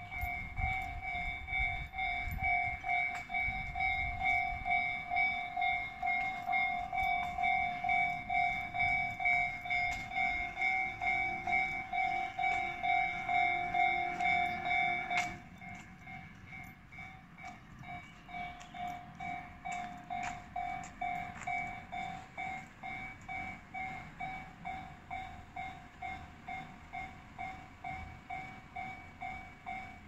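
Japanese railway level-crossing alarm ringing, an electronic bell repeating evenly about twice a second, signalling that a train is coming and the crossing is closed. A low rumble lies under it for the first half, then the whole sound drops sharply in level about halfway through while the ringing continues.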